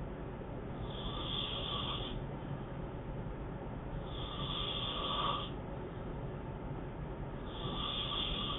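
A man snoring in his sleep: three snores in an even rhythm, about one every three seconds.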